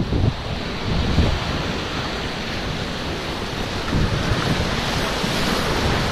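Whitewater rapids on a river running high, a steady rush of churning waves close around an inflatable kayak, with wind noise on the microphone.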